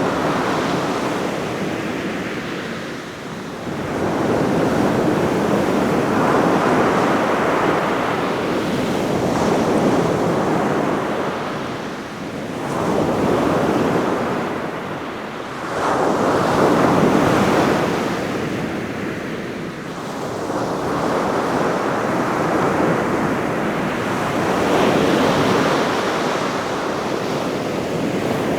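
Ocean surf breaking on a beach: the waves blend into a continuous rushing noise that swells and eases every few seconds, much like brown noise.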